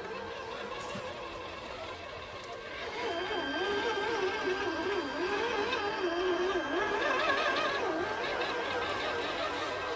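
Electric motor and gear whine of a scale RC crawler truck, its pitch wavering up and down with the throttle as it crawls over roots. It gets louder about three seconds in.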